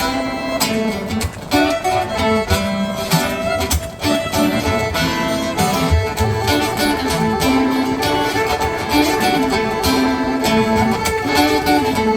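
Instrumental music with no singing: a band playing, with guitar and a fiddle carrying the melody.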